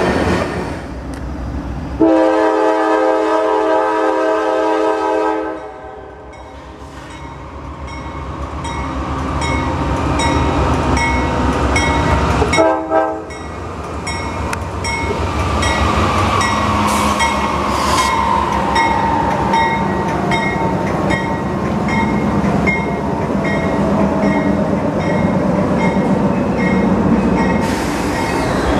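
Diesel freight locomotive sounding its air horn in a long blast about two seconds in and a short blast near the middle, then rumbling closer as its double-stack container train rolls past with steady wheel clatter. A faint falling tone is heard as the locomotive goes by.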